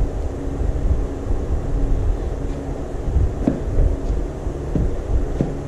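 Steady low mechanical hum and rumble, with three or four light clicks of metal engine parts being handled as valve tappets are fitted.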